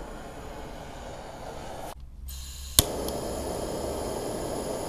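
Steady rushing of a burner flame playing on an insulation board. About two seconds in it briefly drops out, then a single sharp click comes, and the steady rushing returns a little louder.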